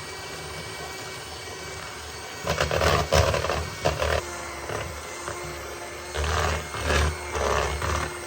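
Electric hand mixer kneading stiff bread dough, its motor labouring under the load. It hums steadily, then runs in irregular louder surges, and its pitch drops about four seconds in as the motor slows.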